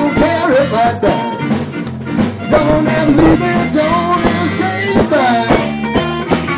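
Live rock-and-roll band playing: electric bass, drums on a steady beat and a lead melody line, with no singing.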